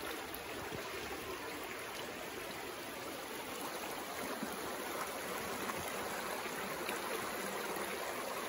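Shallow rocky creek flowing over stones and riffles: a steady, even rush of water that grows slightly louder toward the end.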